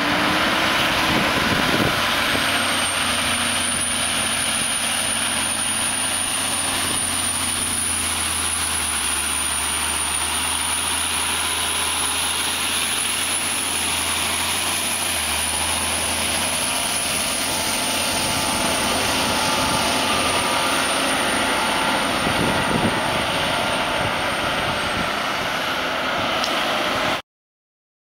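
John Deere 9330 tractor's diesel engine running steadily while the tractor pushes and packs silage with its front blade, with a thin, steady high-pitched whine over it from about two seconds in until near the end.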